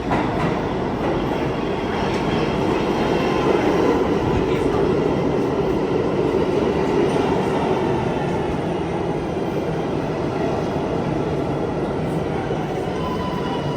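New York City Subway train running along the track at a station: a steady, loud rumble with faint high whining tones above it.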